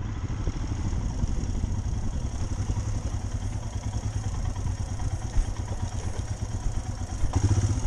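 Motorcycle engine, a Royal Enfield, running at low speed on a rough, muddy dirt track, a steady low pulsing with some rattle. It gets briefly louder near the end.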